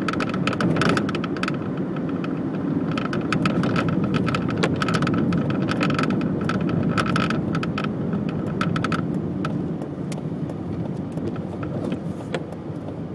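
Corsa B with a buzzing rattle like vibrating plastic, coming in spells of rapid clicks over the car's steady low rumble, then only a few scattered clicks. The owner can't pinpoint the rattle on the driver's side and suspects it may be linked to a recently replaced radiator fan.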